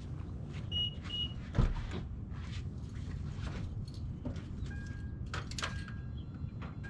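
Clicks and knocks with one solid thump about a second and a half in, like a car door being shut, and two short electronic beeps just before it, over a steady low rumble.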